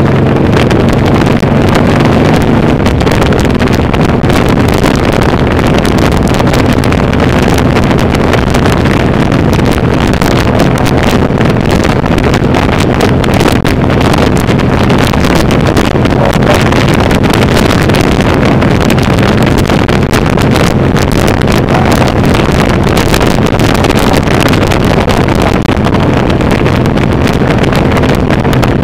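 Suzuki C1800R's V-twin engine running at a steady cruise, heard from on the bike, with heavy wind noise on the microphone.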